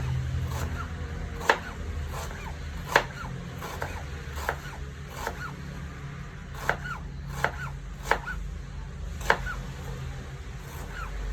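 Onions being sliced thinly with a knife: sharp knocks of the blade at an uneven pace, roughly one a second, with softer cuts in between.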